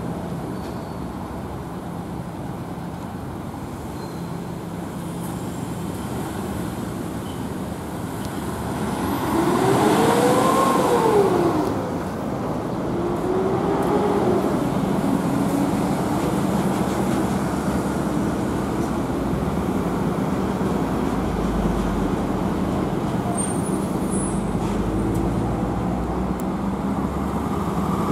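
Urban road traffic at an intersection: a steady hum of running engines and tyre noise. About ten seconds in, a vehicle engine rises and then falls in pitch as it accelerates, the loudest sound, with a smaller rise and fall a few seconds later.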